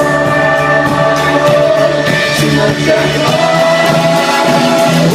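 Indie rock band playing live, with several voices singing together over the instruments.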